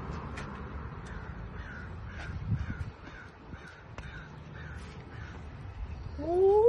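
A bird calling over and over, about two short calls a second, over outdoor background noise. Near the end a loud call glides sharply upward in pitch.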